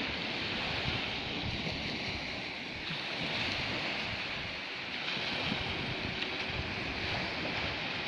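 Wind buffeting the microphone in uneven gusts over a steady wash of sea surf.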